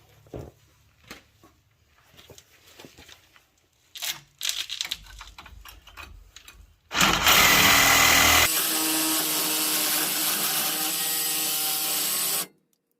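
Light clicks and clatter of handling, then a Sawzall reciprocating saw starts about seven seconds in and runs steadily, cutting off a steel bolt, before stopping suddenly near the end.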